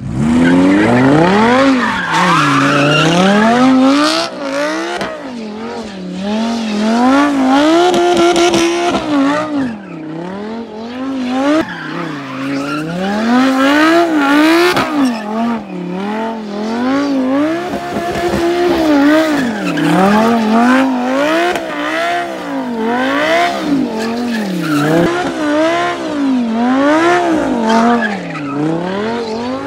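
Straight-piped Audi R8 doing donuts. The engine revs rise and fall over and over, about every one and a half to two seconds, with the tyres spinning and squealing.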